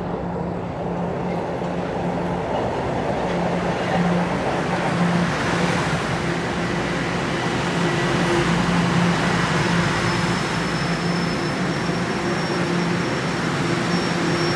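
TTC Line 1 subway train running: a rumble that builds over the first few seconds and then holds, with a low hum that comes and goes.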